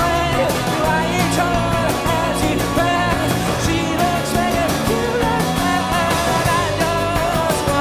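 Live rock band playing, with a male lead voice singing over driving drums and guitars.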